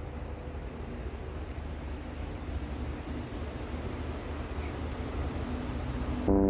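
Steady outdoor background rumble and hiss. Near the end a louder, steady droning hum cuts in abruptly.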